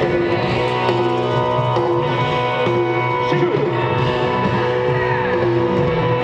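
Live band music from a festival stage's sound system, loud and steady with held notes.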